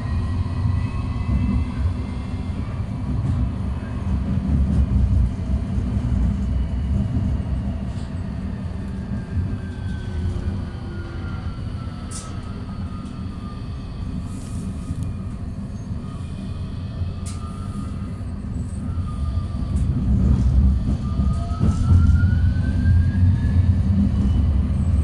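Interior of a moving electric tram: a steady low rumble of wheels and running gear, with the motors' whine falling in pitch as it slows through the middle, then rising again as it picks up speed near the end.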